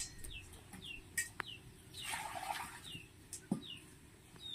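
A bird chirping over and over in short falling notes, a couple each second. About two seconds in there is a brief splash of water as vegetables are rinsed in a steel bowl, and a few light clicks of utensils.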